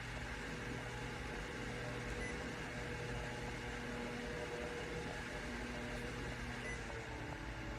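Orteen 9-inch battery-powered camping fan running steadily: an even rush of air over a low motor hum.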